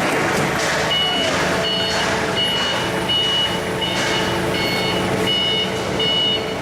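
A repeating electronic warning beep, about two beeps a second, starting about a second in, over steady workshop machinery noise.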